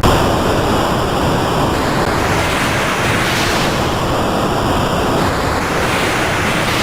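Loud rushing electronic noise, like surf, that swells twice in the highs, about three seconds in and again near the end. Faint high steady tones sound between the swells. It starts and stops abruptly.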